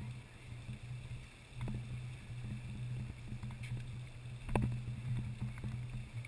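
Lady Knox Geyser erupting: a steady, low rushing from its jet of water and steam, with one sharp knock about four and a half seconds in.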